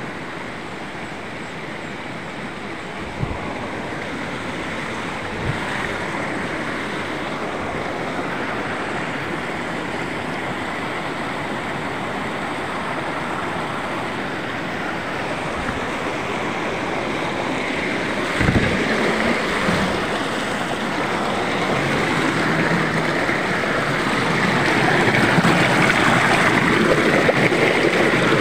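Stream water rushing and splashing over boulders below a small waterfall: a steady rush that grows louder over the last third. A few brief low thumps are also heard.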